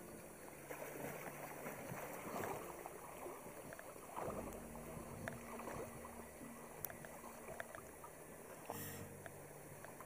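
Shallow river water lapping and splashing close by, uneven, with two louder spells of splashing.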